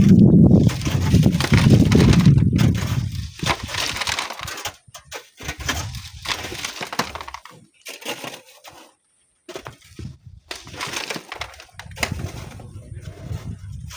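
Gritty crunching and scraping of sand and stones in irregular bursts, heaviest in the first few seconds and broken by short pauses, with a low rumble from wind on the microphone at the start.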